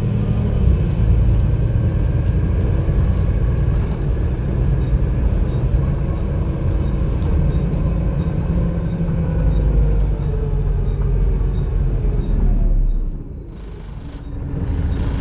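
Volvo B7TL double-decker bus's six-cylinder diesel and ZF Ecomat drivetrain running under way, a steady low rumble with the engine pitch sliding down and back up. About twelve seconds in a brief high squeal sounds as the bus slows, and the engine noise then drops sharply, as at idle.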